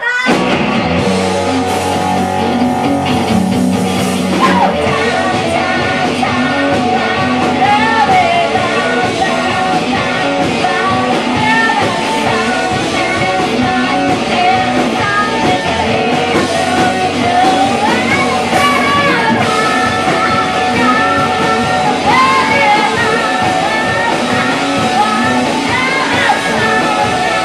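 Rock band playing a song with a singer, at a steady full volume throughout.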